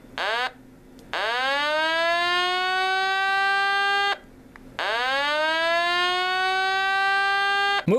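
Electronic siren alarm from the 1985 G.I. Joe USS Flagg playset's battery-powered speaker, on its second alarm setting. A buzzy tone swoops up, holds steady for about three seconds and cuts off, then does the same again.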